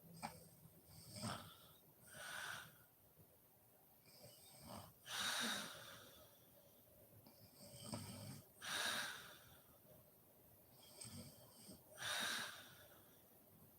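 A sleeping woman snoring in slow, regular breaths, four in all, about one every three and a half seconds. Each breath is a low snore followed by a louder, airy rush of breath.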